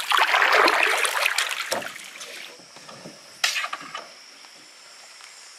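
Canoe coming in to a rocky shore: about two seconds of water rushing and hull scraping, then a low knock. A single sharp clack follows about three and a half seconds in, and then it goes quiet.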